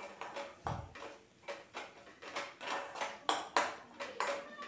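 Steel spoon scraping and clinking against an aluminium kadai while stirring a thick onion-tomato masala as it fries down in oil: a string of short scrapes, about two or three a second, some with a brief ring of the pan.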